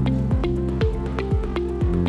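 Upbeat corporate background music with a steady electronic kick drum about twice a second under short melodic notes.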